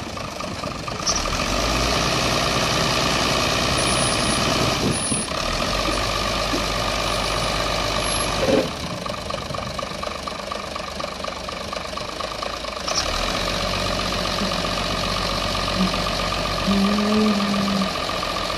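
Diesel engine of a Wirtgen W1000F cold milling machine running steadily, with a fast, even clatter.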